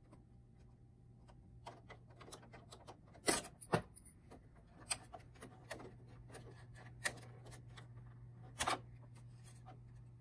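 Plastic wire-harness connectors being unplugged from the circuit boards of a Kyocera ECOSYS M2540 printer: scattered light clicks and taps, the loudest a pair about three and a half seconds in and another about nine seconds in, over a faint steady low hum.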